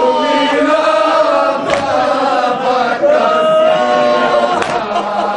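Men's voices chanting a Shia nauha (Urdu mourning lament) together, the melody held in long wavering lines. Sharp slaps of matam, open-hand chest-beating, land about every one and a half seconds.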